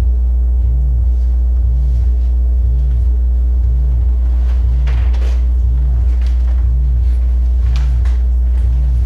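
Sine wave oscillators droning: a loud, steady, very low hum, a tone sweeping up and back down in pitch about once a second, and fainter steady higher tones layered above.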